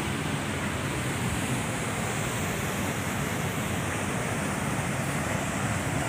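Steady rushing of water pouring over a dam spillway.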